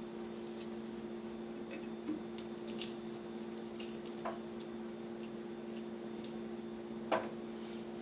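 Scattered light clicks and rattles of kitchen containers and utensils being handled, the loudest cluster about three seconds in, over a steady electrical hum.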